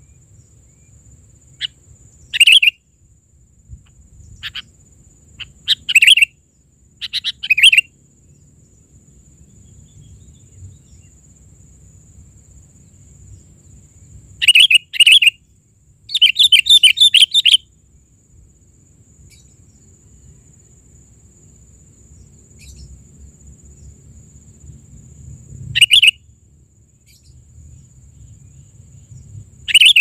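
Sooty-headed bulbul calls: loud, sharp chirps in short scattered bursts, with a quick rattling run of chirps about halfway through and single calls near the end.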